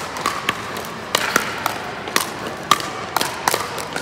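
Pickleball paddles hitting a hard plastic ball, with bounces on the concrete floor: an irregular series of sharp pops and taps, about ten in four seconds, from this rally and neighbouring courts, echoing in a large hall.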